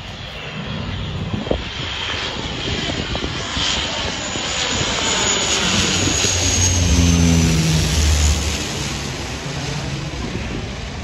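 Twin-turboprop airliner on landing approach passing low overhead: a steady propeller drone and turbine whine build to their loudest about seven seconds in, the high whine falling in pitch as it goes over.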